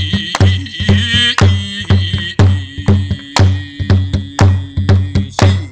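Korean barrel drum (buk) beaten in a steady rhythm of about two strokes a second, every other stroke stronger, with a held, wavering pitched tone above it.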